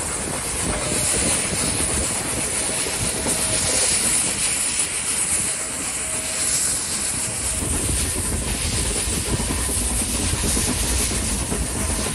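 Metre-gauge steam train hauled by the HG 3/4 No. 1 locomotive, heard from a carriage window while running. Wheels and carriage rattle steadily over the track and steam hisses from the locomotive ahead. A deeper rumble strengthens after about seven seconds.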